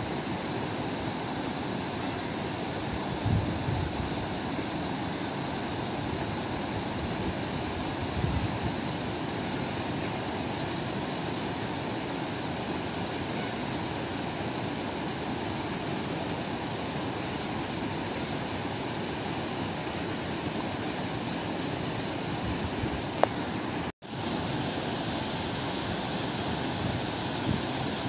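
River rapids: water rushing over rocks, a steady, even rush of noise. It cuts out for an instant about three-quarters of the way through, then carries on.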